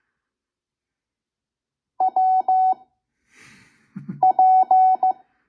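Slow Morse code practice at 5 words per minute: a single steady beep near 750 Hz keyed in dots and dashes, in two short groups of characters about two seconds apart. A brief soft hiss and a low thump come just before the second group.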